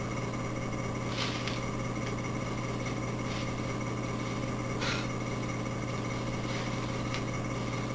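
Steady low electrical hum and hiss of room tone, with two faint brief noises, about a second in and near five seconds.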